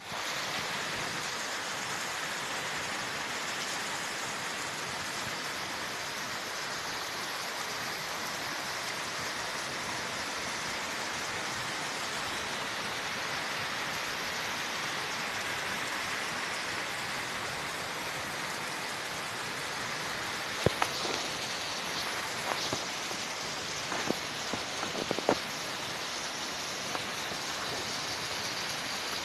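Heavy rain falling steadily on trees and ground, with water pouring off a roof and splashing below. In the last third come several sharp, separate knocks.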